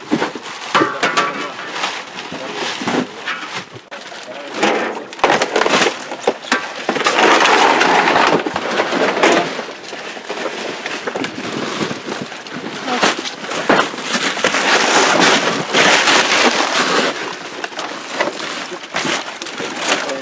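Freshly harvested milkfish being handled and dropped into plastic crates: a run of knocks, clatters and wet slaps, with two longer, louder stretches of rustling and splashing about seven and fifteen seconds in.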